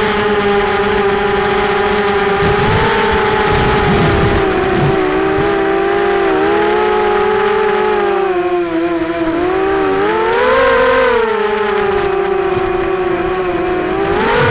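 250-size FPV quadcopter's brushless motors and propellers whining, the pitch rising and falling with throttle; it sags lower around eight to ten seconds in, then climbs sharply just after.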